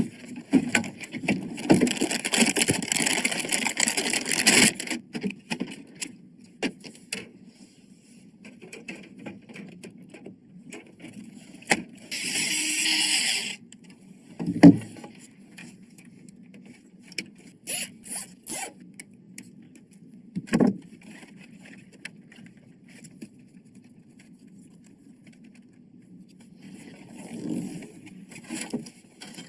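Hands handling PC parts during assembly: scraping and rustling for the first few seconds, then a short hissing scrape near the middle. After that come two sharp knocks and a quick cluster of clicks.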